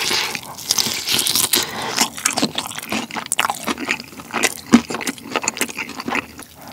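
Biting into and chewing a drumstick of sticky, sauce-glazed Korean yangnyeom fried chicken, the meat torn from the bone. It is a rapid, irregular run of short clicks, crackles and smacks, with the loudest snap about two-thirds of the way in.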